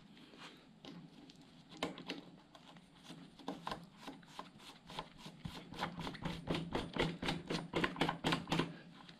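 Rapid run of light clicks as the end cap of a Shimano crank arm is screwed onto the crank axle with a bottom-bracket tool. The clicks come sparse at first, then at about five a second and louder from about three seconds in, and stop shortly before the end.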